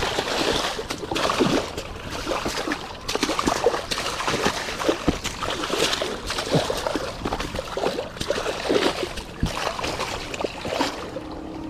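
Repeated splashing and sloshing in shallow seawater as a hooked silver (coho) salmon thrashes and an angler in waders wades in to grab it.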